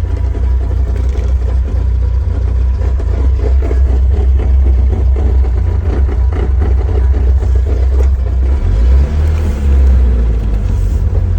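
VAZ-2107 running with a steady low rumble and irregular knocking and rattling over it: the knock from the gearbox area.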